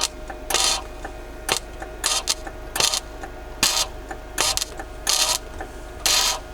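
Gasless flux-core MIG welder laying tack welds: a series of short crackling arc bursts, each lasting a fraction of a second, about one a second, with a faint steady hum between them.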